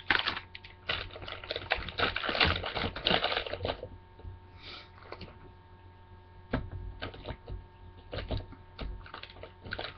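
Clattering and clicking of toiletry bottles and containers being handled and put away in a caddy. It is busy for the first few seconds, then thins out to scattered knocks.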